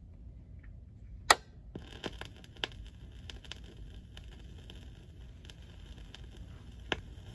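Stylus set down on a spinning 45 rpm vinyl single with one sharp click about a second in, then the lead-in groove's surface noise: a faint hiss with scattered crackles and pops before the music begins.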